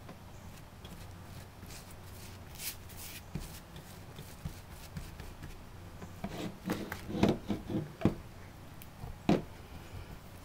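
Paintbrush loaded with gesso scrubbing and dabbing over corrugated cardboard and glued fabric: a run of short rough brushing strokes, with louder strokes about six to eight seconds in and a sharp one just after nine seconds.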